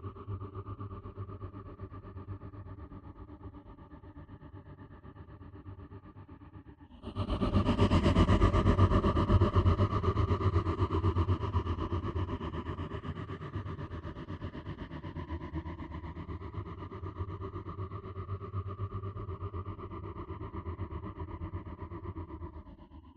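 Horror-film sound effect: a low, fluttering drone that suddenly swells much louder and brighter about seven seconds in, then slowly fades and cuts off near the end.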